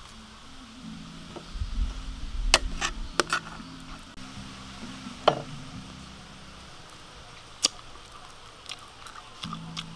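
Knife and spoon clinking and scraping against a metal plate as rice stuffing is scooped out of a roast chicken. A few sharp clinks come close together about two and a half to three and a half seconds in, another about five seconds in and a single one near the end.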